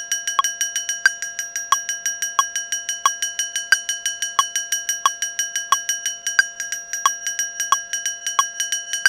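A looped sample of a short metallic, cowbell-like percussion hit playing back in a fast, even run of about six strokes a second. A brighter accent comes about every two-thirds of a second.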